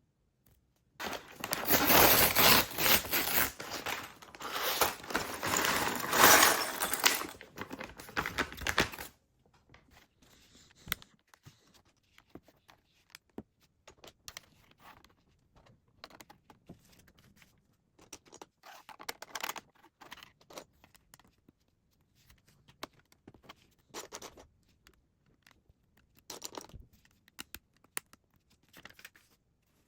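Plastic bags of Lego pieces being torn open and crinkled, with a dense rustle and rattle for about eight seconds. After that come scattered light clicks and short rattles of small plastic bricks being handled.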